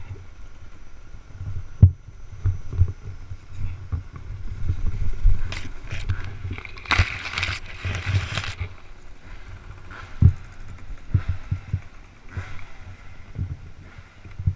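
Irregular low thumps and scuffs on the helmet-mounted camera as the rider moves around and handles his dropped dirt bike, with a louder rough hissing scrape lasting about a second and a half, about seven seconds in.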